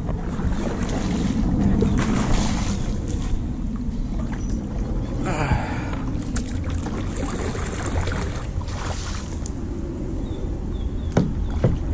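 Water splashing and lapping around a kayak in swells of about a second each, over a steady low rumble of wind on the microphone, with a few sharp clicks near the end.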